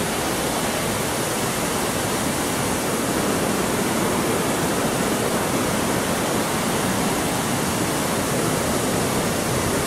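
Water cascading down the terraced concrete steps of the Fort Worth Water Gardens fountain: a loud, steady rushing.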